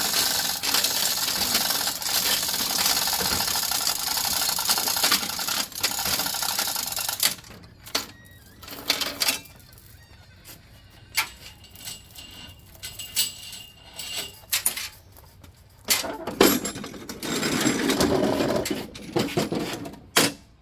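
Lift mechanism being worked to raise a lawn tractor: a steady mechanical ratcheting rattle for about the first seven seconds, then scattered clicks and knocks, and another stretch of the rattling noise near the end.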